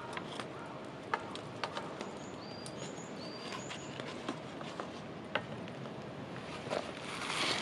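Scattered small clicks and light rustling of paper instant-soup cups being handled and their lids peeled open beside a small wood fire, over a steady outdoor hiss. A bird gives three short, high double chirps about two to four seconds in, and a louder rustle rises near the end.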